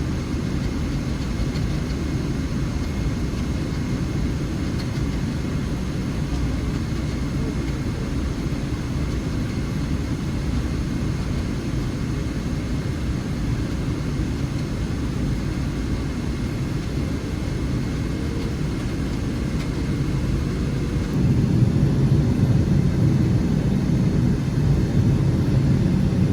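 Steady low cabin noise of a Boeing 777-300ER airliner. The low rumble steps up and grows louder about 21 seconds in.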